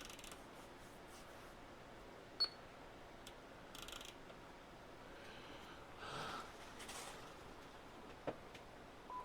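Faint clicks and handling of a 10-meter ham radio's controls as its buttons and tuning knob are worked. A short high beep sounds about two and a half seconds in, and a brief lower beep near the end.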